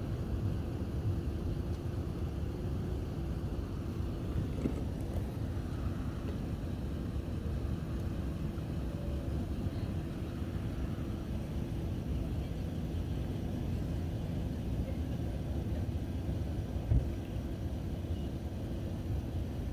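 Steady low vehicle rumble, with a single thump about seventeen seconds in.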